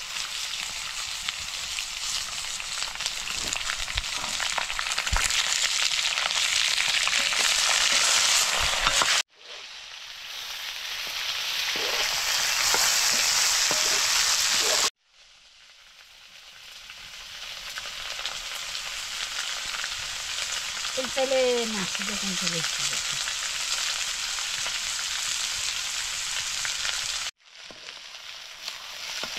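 Chayote pieces frying in a wok over a wood fire, a steady sizzling hiss that builds in loudness, cuts off suddenly and starts again a few times.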